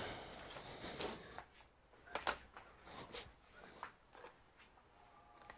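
Faint, irregular clicks and taps, several in a few seconds, from someone working at a computer.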